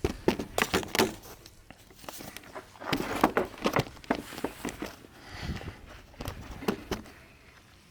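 Footsteps with irregular clicks and knocks of small parts being handled, busiest about three to four seconds in and dying away near the end.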